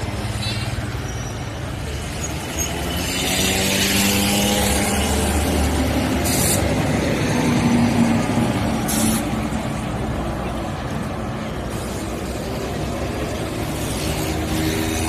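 Street traffic: engines of cars, a bus and motorbikes running and passing, with two short hisses about six and nine seconds in.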